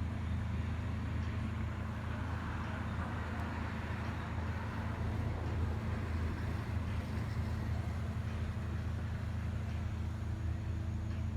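Steady low background rumble with a faint constant hum and no distinct events.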